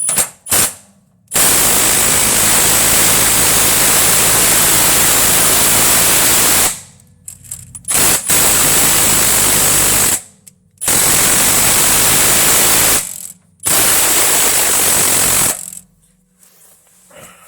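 A large impact wrench hammering on a suspension bolt in bursts: a couple of short blips, then four long runs, the first about five seconds and the others about two seconds each, with short pauses between them.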